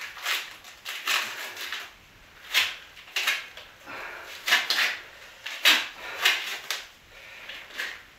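Hand sanding a wooden skirting board with sandpaper: a string of short scratchy strokes at an uneven pace, roughly one or two a second.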